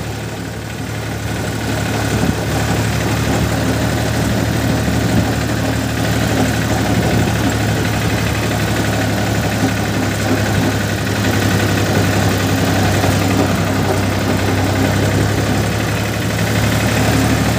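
Farm tractor's diesel engine running steadily under way, heard from the driver's seat as a constant low drone.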